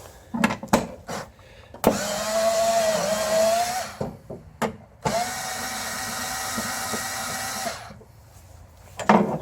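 Ryobi power driver running twice, about 2 s and then about 3 s, backing out an 8 mm screw from the snowblower's plastic cover. A few short clicks at the start and near the end.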